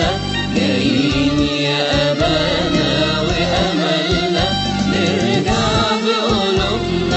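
Music interlude: a chanted vocal melody in a Middle Eastern style over instrumental backing with a steady low rhythm.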